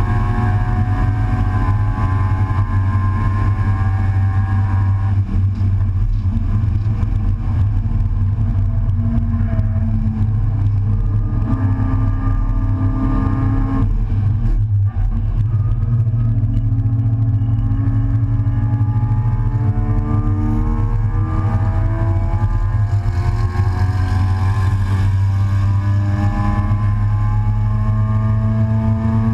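Race car engine heard from inside an open, stripped cockpit at speed, with heavy wind rumble. The pitch changes about five seconds in and dips briefly around the middle as the driver lifts, then climbs steadily through the last dozen seconds under full acceleration.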